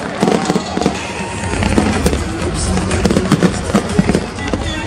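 Aerial fireworks bursting overhead: a rapid, irregular run of sharp bangs and crackles, with music playing underneath.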